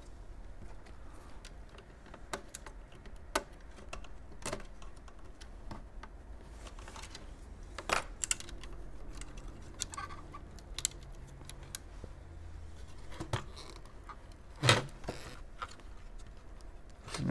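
Scattered clicks and light knocks from the plastic and metal parts of a partly dismantled modem being handled, its metal frame and circuit boards shifting and tapping together. The loudest knock comes about fifteen seconds in.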